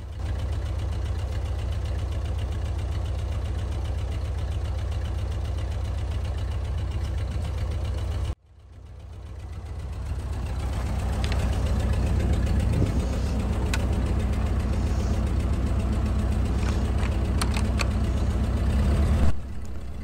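Ford 8N tractor's four-cylinder engine running steadily with a low, even rumble as the tractor is driven. The sound cuts off abruptly about eight seconds in, then comes back up gradually and keeps running.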